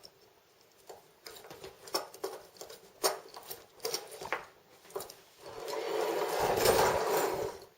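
Synthetic sailing rope rubbing and small Harken blocks and a cleat clicking as a knot is tied around the bottom of the cleat, a scatter of small clicks and rustles. Near the end comes a longer rub that swells and fades over about two seconds as the rope is drawn tight.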